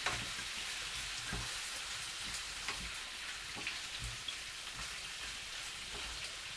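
Cuttlefish pieces sizzling in a hot frying pan as they are stirred, a steady crackling hiss with a few light clicks.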